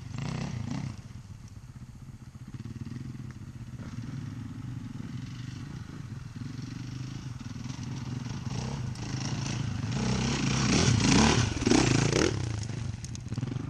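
Dirt bike engine revving in surges as the bike rides over dirt mounds toward the microphone, growing louder, with the loudest bursts of throttle about two to three seconds before the end.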